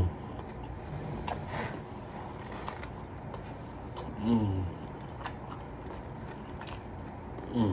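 Close-up biting and chewing of a fried chicken sandwich, with scattered crisp crunches, and a brief voiced sound about four seconds in.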